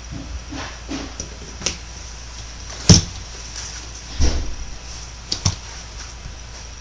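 A few scattered sharp clicks and knocks, the loudest about three seconds in, over a steady low hum and hiss.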